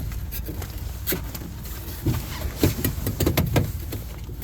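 Car engine running at a steady low idle, with scattered sharp clicks and knocks over it.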